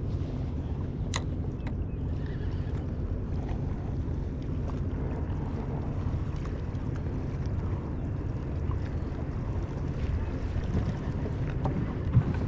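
Steady low rumble of wind on the microphone aboard a small fishing skiff, with a few faint clicks scattered through it.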